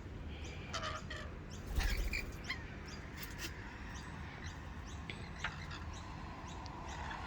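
Rainbow lorikeets giving short, scattered chirps and squeaks at close range, with a bump about two seconds in.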